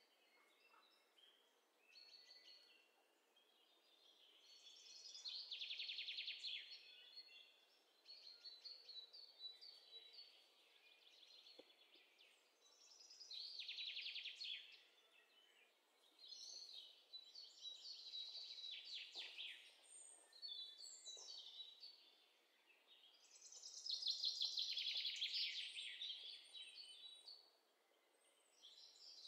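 Songbirds chirping in repeated bursts of quick, high chirps that swell and fade every several seconds.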